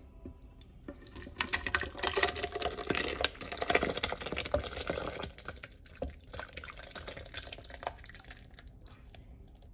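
Thick, hot barbecue sauce being poured from a stainless steel pot into a plastic blender jar: wet splashing and glopping that starts about a second in, is loudest for the next few seconds, then tapers off.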